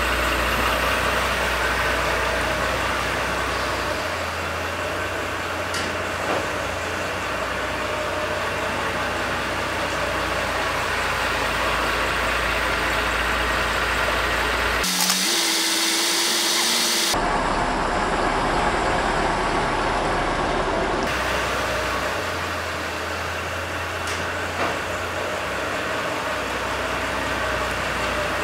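Car engine running at low revs as the car creeps slowly forward, with a few faint clicks. The sound changes abruptly for about two seconds midway.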